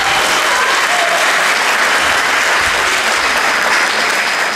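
Audience applauding, steady dense clapping, with a few brief voice sounds in the first second.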